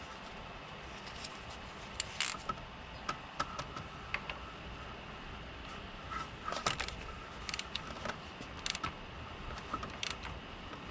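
Scattered light metallic clicks and clunks from a ratchet and socket being fitted onto the crankshaft bolt of a Subaru EJ-series engine, at irregular intervals.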